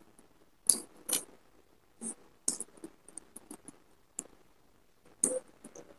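Eating sounds: fried fish being pulled apart with the fingers and chewed, heard as about a dozen short, crisp clicks and smacks at irregular intervals.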